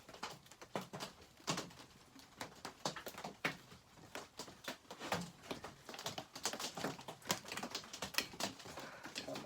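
Pliers working a small nut onto a bolt on a McCulloch 850 chainsaw, giving irregular sharp clicks and taps of metal on metal.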